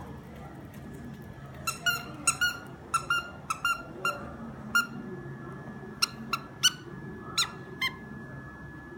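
Squeaker in a plush frog toy squeaking as a dog bites and chews it: about fifteen short, sharp, high squeaks in irregular clusters, starting a little under two seconds in and stopping near the end.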